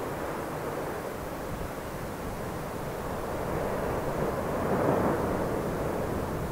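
Steady low roar of the Fagradalsfjall volcanic eruption in Iceland, a rushing noise with no distinct tones, swelling a little about five seconds in.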